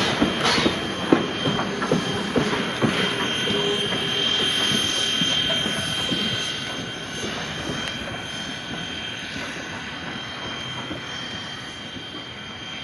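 Steam train's wheels going away over the rails: sharp clicks over the rail joints for the first few seconds, then a steady high-pitched wheel squeal, the whole sound slowly fading.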